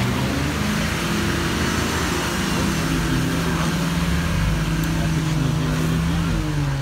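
Off-road 4x4 engine running hard under load, its pitch rising and falling, as the vehicle tries to force its way through a bog.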